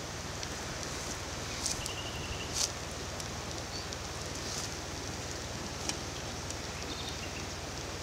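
Wood campfire burning under a blackened teakettle: a steady hiss with a few sharp crackles and pops.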